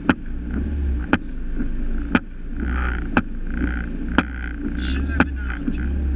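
Fiat Cinquecento rally car's 1.4-litre engine idling, heard from inside the cabin, with small swells in the revs. A sharp click sounds exactly once a second throughout.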